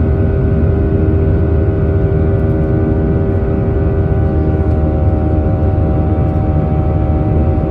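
Airbus A319 jet engines droning steadily, heard from inside the cabin: a heavy low rumble under a set of steady engine tones.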